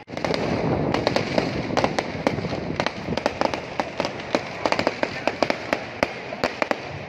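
Aerial fireworks bursting and crackling: a rapid, irregular string of sharp cracks over a continuous rushing noise.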